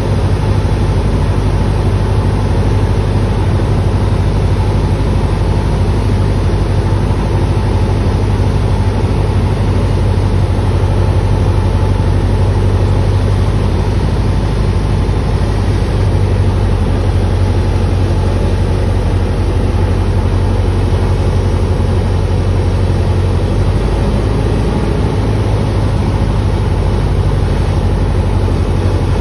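Single-engine propeller plane's engine and propeller droning steadily inside the cockpit on final approach to landing.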